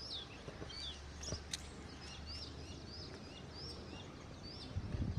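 A bird calling over and over, short rising-and-falling chirps about twice a second, over faint open-air background.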